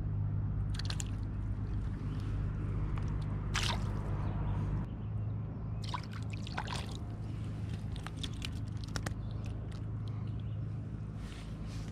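Small sunfish splashing and thrashing at the water's surface as it is hauled in on a hand line, with dripping and sloshing water in short bursts, the biggest about 3.5 s in and again around 6 to 7 s in. A steady low hum runs underneath.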